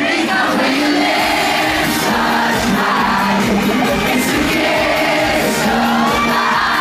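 Live pop band performance: male vocals singing over a steady drum beat, with a crowd screaming and singing along.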